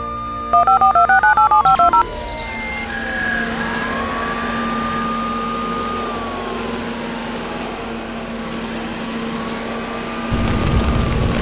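Cartoon machine sound effects from a tank car's control panel as it processes. First comes a quick run of about a dozen electronic beeps alternating between two pitches. Then a steady mechanical hum with a whine that rises, holds and falls twice, and near the end a louder rushing noise starts.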